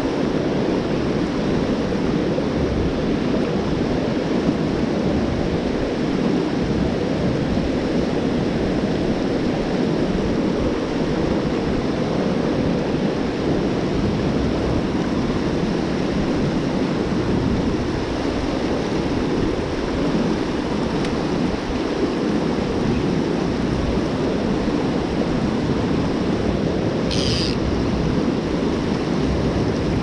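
Mountain stream rushing over rocks below a small waterfall: a loud, steady rush of water. A brief high sound comes about 27 seconds in.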